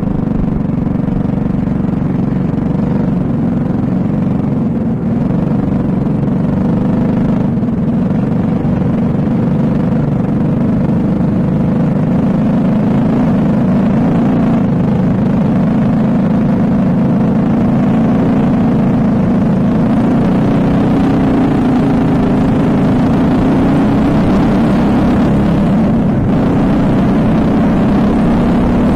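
Briggs & Stratton LO206 four-stroke single-cylinder kart engine running at part throttle on the formation lap; its pitch holds steady, then rises near the end as the kart accelerates for the race start.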